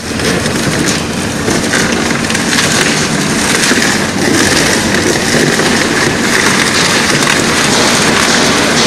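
Twin-shaft shredder's toothed cutters chewing up a board: a loud, dense, continuous crackling and crunching.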